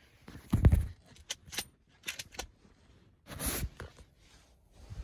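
Handling noise from the hunter's gear: a heavy bump about half a second in, then scattered light clicks and clinks and a brief rustle a little past the middle.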